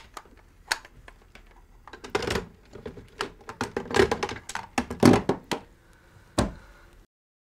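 Plastic handsets of two desk telephones clattering and knocking as they are handled and set together on a wooden desk: a string of sharp clicks and knocks, busiest between about two and five seconds in. The sound cuts to dead silence about seven seconds in.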